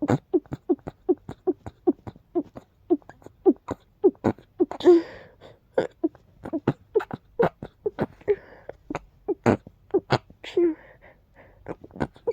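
A person sneezing over and over in rapid succession, about two sneezes a second, each a short voiced catch of breath followed by a sharp burst. The sneezing comes from a tickle deep in the nose.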